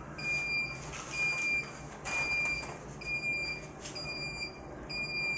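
Clamshell heat press's timer beeping: a high, steady electronic beep about half a second long, repeating roughly once a second, six times, while the press stays clamped shut on a rhinestone transfer.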